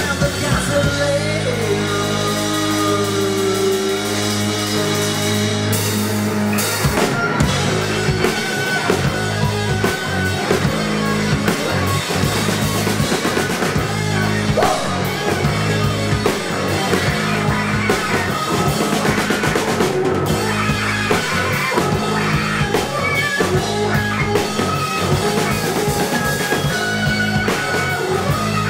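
Live rock band playing loud: drum kit, electric guitars and bass guitar. Over the first few seconds a lead line bends in pitch, then the drumming grows denser about seven seconds in.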